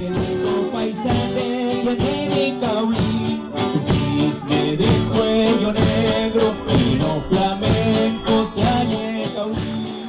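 Background music led by a plucked string instrument, its notes picked at a quick, even pace over held chords.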